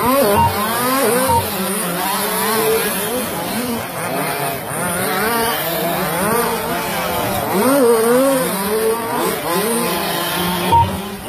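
Several radio-controlled racing trucks revving and easing off as they lap the track, their motors' overlapping pitches rising and falling constantly. A few short, high beeps sound near the start and once near the end.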